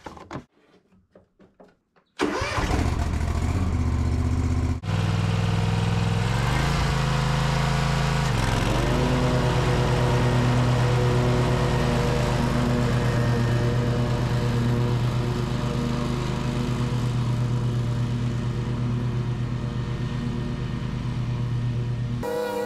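Toro TimeCutter zero-turn mower's engine comes in suddenly about two seconds in, rises in pitch as it is throttled up, then runs steadily at full throttle while mowing.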